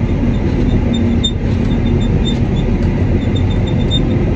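Komatsu D65 bulldozer's diesel engine running steadily under load as it pulls a bedding plow, heard in the cab, with a deep rumble and a faint rapid high ticking that comes and goes.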